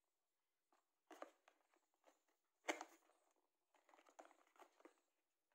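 Faint handling of a small cardboard box: flaps opened and cardboard rubbing and tapping in scattered soft rustles and clicks, the sharpest just under three seconds in.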